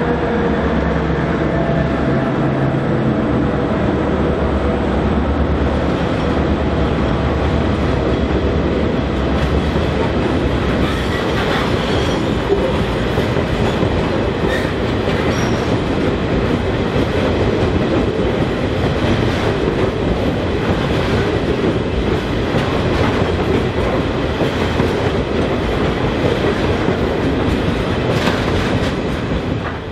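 Diesel locomotives hauling a freight train pass close by. Their engines make a low, steady drone for roughly the first ten seconds. After that, a long rake of hopper wagons rolls past, with wheels clicking over the rail joints.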